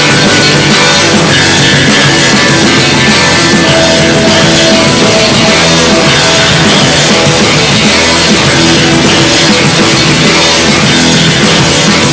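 Loud, steady rock music with no singing.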